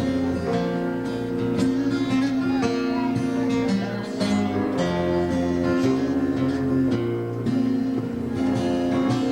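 Small gospel band playing an instrumental break between verses: acoustic guitar to the fore, over steady bass notes.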